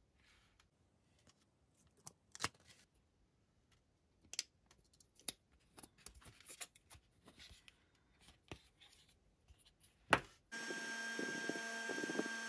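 Light, scattered clicks and knocks of a hard plastic housing being handled and set against a wooden block. About ten and a half seconds in, a steady hiss with held tones starts abruptly.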